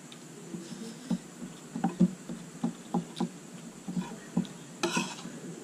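Eating sounds close to the microphone: irregular soft knocks and smacks of chewing and a fork working on a plate, about a dozen over a few seconds, with a brief brighter noise near the end.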